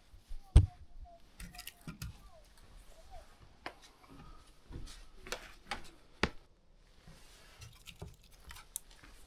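Scattered clicks, knocks and light rattles of gear being handled, with one sharp knock about half a second in.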